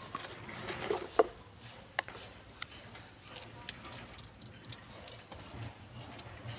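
Scattered light knocks and clinks of a hand tool working against concrete and steel bars at irregular intervals, the sharpest knock about a second in.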